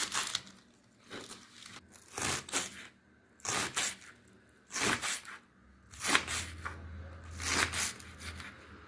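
Kitchen knife slicing fresh green onions thinly on a bamboo cutting board: crisp crunching cuts with the blade tapping the board, coming in short runs of a few strokes, about seven runs in all.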